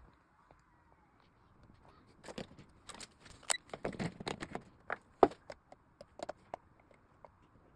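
A run of irregular clicks, taps and small knocks, thickest in the middle and thinning out near the end: tools and small parts being handled and set down on a workbench during electronics repair.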